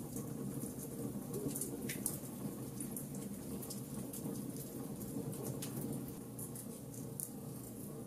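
Wood logs burning in a fireplace: a steady low rush of flame with frequent sharp crackles and pops, a little sparser in the last couple of seconds.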